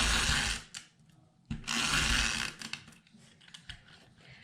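Tombow tape-runner adhesive rolled along paper in two strokes of about a second each, laying down a line of glue. A few light ticks follow near the end.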